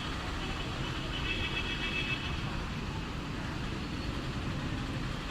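Steady low rumble of road traffic and engines, with faint distant voices about a second in.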